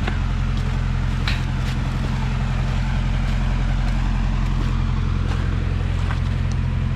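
1969 Massey Ferguson tractor's engine idling steadily, with a few faint clicks over it.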